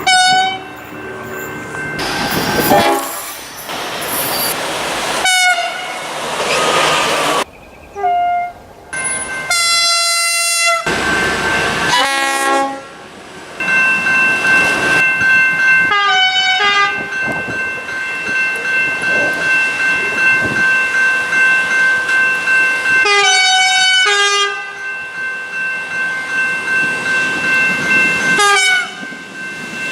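Australian train horns sounding in a string of separate recordings joined by abrupt cuts: short blasts recur several times, and a long steady tone is held through much of the second half, with train running noise between.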